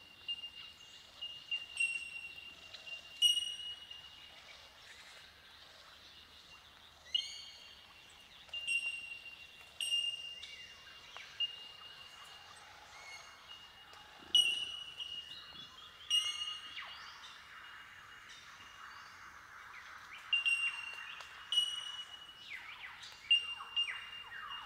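Bell miners (bellbirds) giving their ringing, bell-like 'tink' calls: single clear high notes, each held about a second, from several birds at irregular intervals, combining into a windchime-like chorus. Fainter falling calls thicken in behind them in the second half.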